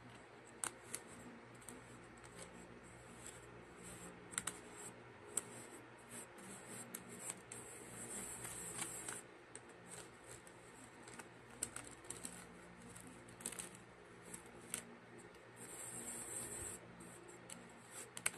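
Plastic spoon scooping and scraping kinetic sand clay in a plastic tub: faint scraping with scattered clicks of the spoon against the tub. There are two longer scraping passes, one about eight seconds in and one near the end.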